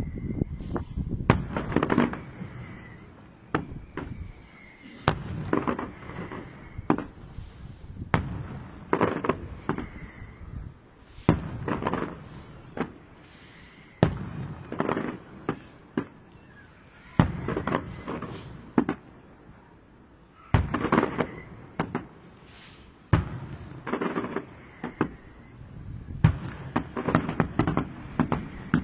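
Aerial firework shells bursting: sharp bangs in irregular clusters every few seconds, with quieter gaps between volleys.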